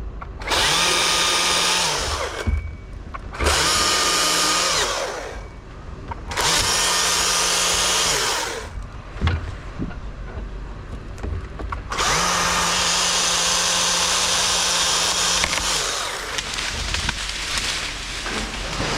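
Two-stroke chainsaw run up to full throttle four times while cutting: three short bursts of about two seconds, then a longer one of about four seconds. It drops back to idle in between.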